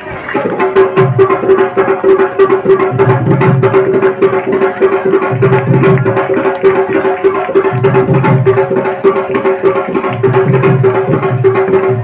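Indian devotional music: fast, dense hand-drum percussion over a steady held drone note, with a deeper beat returning about every two and a half seconds.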